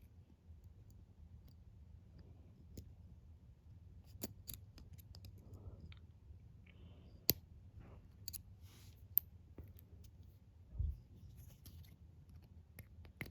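Faint metallic clicks and scrapes of a lock pick and tension wrench working the pin stack of a brass Master Lock 140 padlock, with a few sharper clicks scattered through and a dull low thump about two-thirds of the way in.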